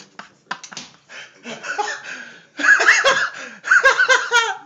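Person laughing: stifled snickering that breaks into two loud bursts of laughter in the second half.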